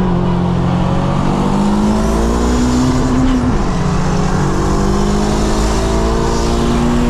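Turbocharged Honda Civic engine accelerating hard, its pitch rising steadily, dropping once at a gear change about three and a half seconds in, then climbing again through the next gear.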